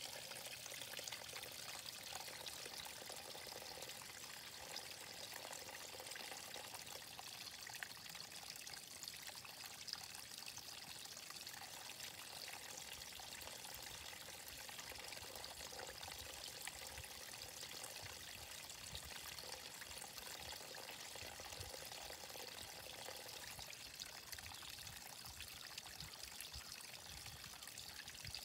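Water trickling steadily into a garden pond, a faint, even pouring sound.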